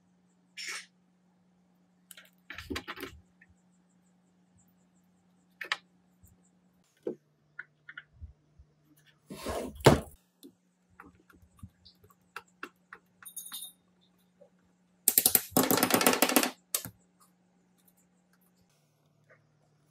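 Hand tools working on the sheet-metal case of an old automatic power stabilizer: scattered metallic clicks and clatter, with a sharp knock just before halfway. About three-quarters of the way through comes a dense run of rapid rattling clicks lasting about a second and a half.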